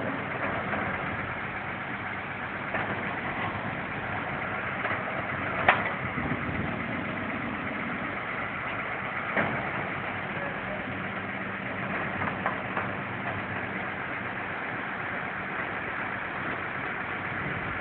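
Crane truck's engine running steadily at idle while its truck-mounted boom crane lifts a shipping container. A few sharp knocks stand out, the loudest about six seconds in and another about nine seconds in.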